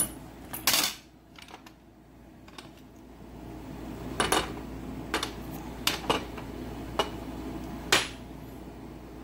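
Chrome crowfoot wrenches clinking together as they are handled, then a series of about six sharp metal clicks, roughly a second apart, as a crowfoot wrench is pushed onto a drive handle's square drive and locks in.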